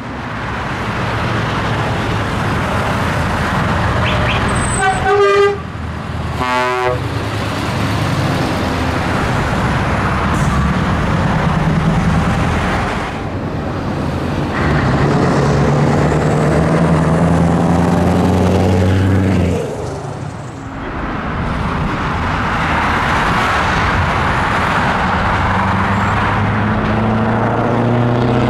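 Scania trucks' V8 diesel engines running as the trucks drive past, with one engine rising in pitch as it pulls away. A truck's air horn is sounded twice, about five and six and a half seconds in, the second blast a chord of several tones.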